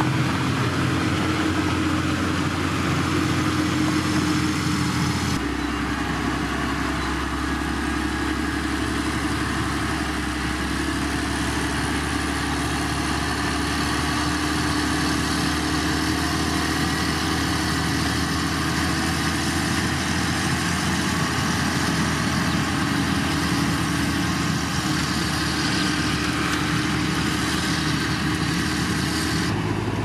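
LiuGong 4180D motor grader's diesel engine running steadily under load; the engine note shifts abruptly about five seconds in.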